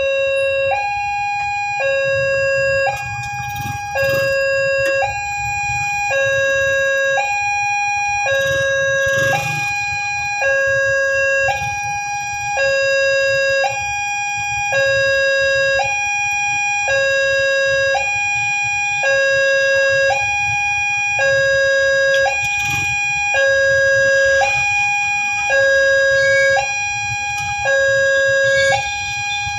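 Railway level-crossing warning alarm sounding steadily, an electronic two-tone signal alternating between a low and a high note about once a second, warning that a train is coming. A low rumble runs underneath.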